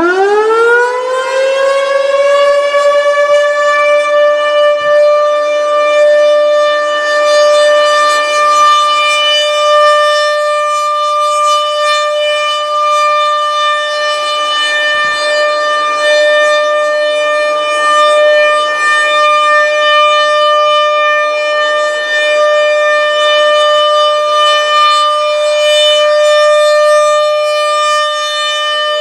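ASC RM-130 rotating outdoor warning siren winding up and settling within a couple of seconds onto a steady single tone of about 600 Hz, held unbroken with a gently wavering level. This is the steady alert signal of a routine siren test, heard from inside a car.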